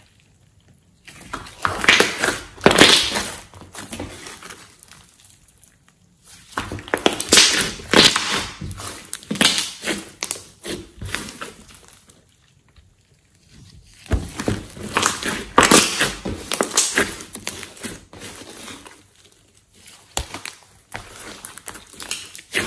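A large batch of slime with clay, eye shadow and glitter mixed in, being stretched, squeezed and kneaded by hand, making squishing sounds in bursts with short pauses between handfuls.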